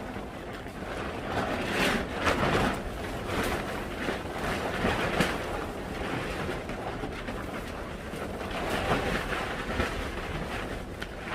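Wind blowing hard across the microphone, a rushing noise that swells and eases in gusts.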